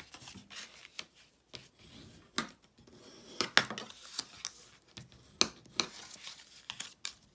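Scored cardstock being folded and its creases burnished with a bone folder: irregular sharp swipes, taps and paper rustles, the loudest swipes about three and a half and five and a half seconds in.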